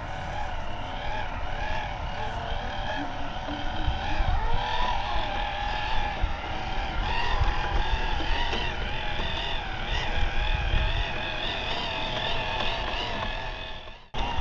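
Electric motor and gearbox of a 1:18-scale FMS FJ Cruiser RC crawler whining as it drives, the pitch rising and falling with the throttle, over a low rumble. The sound cuts out briefly near the end.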